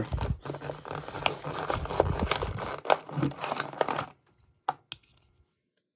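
Plastic blister packaging of a die-cast model truck crinkling and crackling as it is opened, with many small sharp clicks, for about four seconds; it then stops, leaving two faint clicks.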